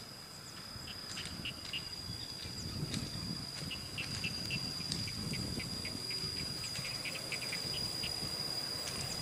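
Steady high-pitched insect trill, likely crickets, with short scattered chirps over it. A low rumble builds from about two seconds in and grows louder.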